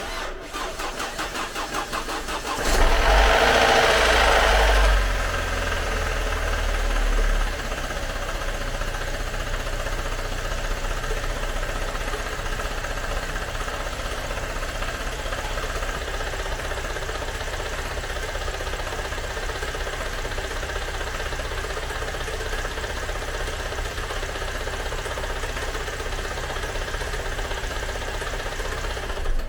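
Freshly overhauled car engine, rebuilt with new piston rings, on its first start: the starter cranks for about two and a half seconds, the engine catches with a loud rise in revs, eases down after a few seconds and then idles steadily.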